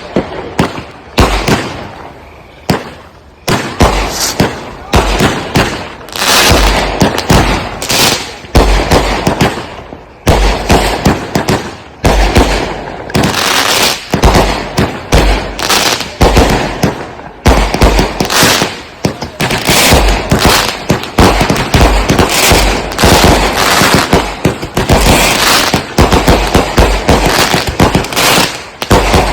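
Consumer firework cakes (multi-shot aerial repeaters) firing a dense, rapid barrage of launch thumps and overhead bursts with crackle, many reports a second, broken by a few brief lulls.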